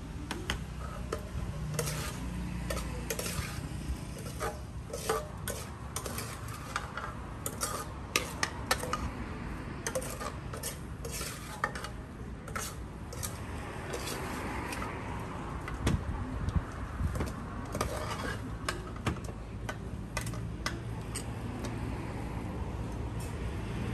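Utensils clinking and scraping against a bowl as salad is stirred and tossed, in many irregular sharp clicks, over a steady low background hum.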